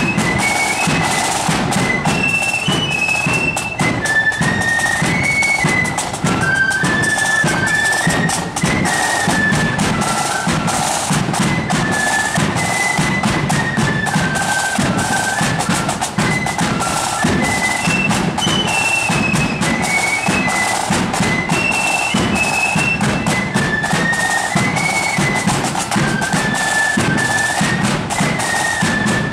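Marching flute band playing: high flutes carry a tune over snare and bass drums beating a steady march.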